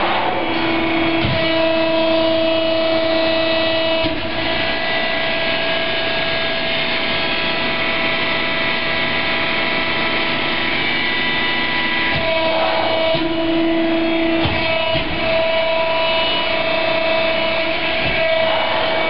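Cincinnati 175CB10 hydraulic press brake running, its 15-horsepower motor and hydraulic pump giving a steady hum and whine made of several tones. A lower tone cuts in for the first few seconds and again about two-thirds of the way through.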